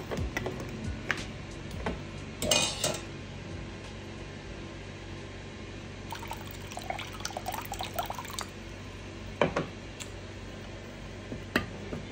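Metal ladle clinking and tapping against a stainless steel pot while stirring dark soy-based noodle sauce, with some liquid sloshing. The clinks come in scattered groups, with a few single sharp taps near the end.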